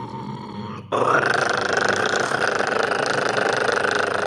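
A man imitating a dinosaur with his voice: a continuous rasping growl, fainter at first, then jumping abruptly louder about a second in and held steadily.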